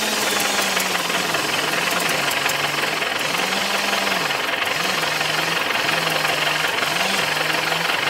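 Vehicle engine running steadily under throttle, its pitch dipping and rising again several times as the revs change.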